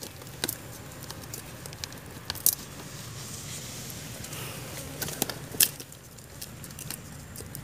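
Plastic sheeting wrapped around a wire-mesh snake trap crinkling and rustling as it is handled and pulled back over dry bamboo leaf litter, with a few sharp clicks from the mesh and dry stalks.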